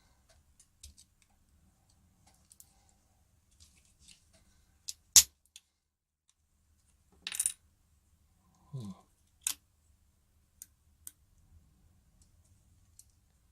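Small metal clicks and taps as a zinc chloride PP3 battery's casing is prised apart with a spudger, with a sharp snap about five seconds in, a short scrape a couple of seconds later, a brief squeak falling in pitch, and another sharp click at about nine and a half seconds.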